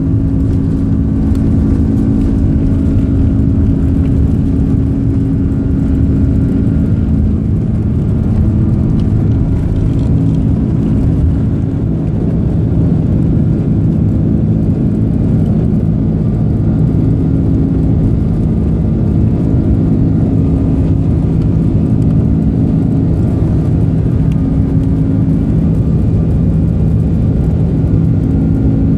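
Rolls-Royce Trent 772B turbofans of an Airbus A330-200 at takeoff thrust, heard from inside the cabin: a steady, loud rumble with several low hums, running on through the takeoff roll and into the climb.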